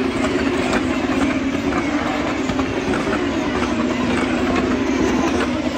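Formula 2 cars' turbocharged V6 engines running on the circuit as the field comes past, a loud, steady drone.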